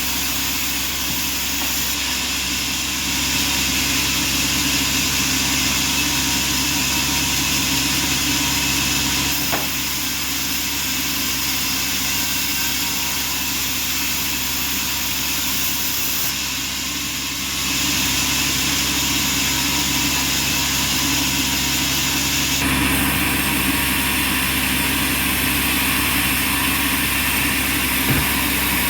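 Band sawmill machinery running steadily: a constant mechanical hum with several fixed tones over a hiss, its character changing abruptly a few times, with a faint knock near the end.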